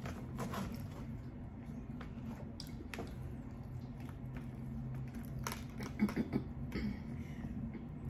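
Plastic knife and fork scraping and clicking in a foam takeout container as food is cut and picked up, with soft chewing; the loudest clicks come in a quick cluster about six seconds in. A low steady hum runs underneath.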